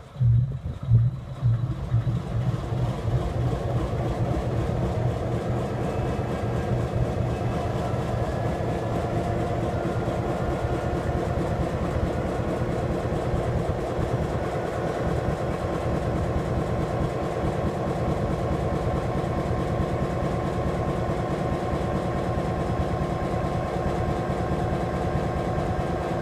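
EMD SD9 locomotive's 16-cylinder 567C two-stroke diesel engine catching on start-up, with a few loud, uneven firing pulses in the first couple of seconds, then settling into a steady idle.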